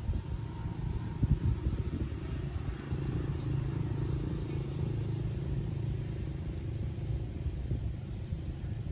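Low, steady rumble of a distant engine, its hum swelling in the middle and easing off. A few sharp knocks come about a second in.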